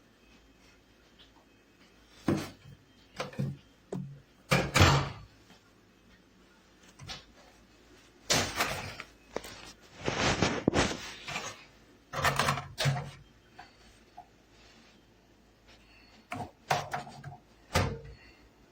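Irregular thumps and knocks, some with a brief low hum, from a new Frigidaire RMW953-RED microwave oven. This is the pounding sound the owner finds not normal for a new microwave.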